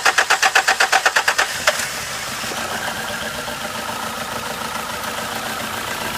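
2003 Nissan Altima's 2.5-litre four-cylinder engine is cranked by the starter with a rhythmic chug, and catches about a second and a half in. It settles into a steady idle with cylinder 2 misfiring, because the injector's pulsed-ground wire from the computer is open.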